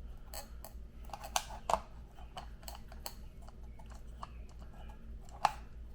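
Small clicks and knocks of a wooden model railroad turntable being handled and turned in its pit to line up with the motor mount, with a few sharper taps, the loudest about five and a half seconds in, over a faint low hum.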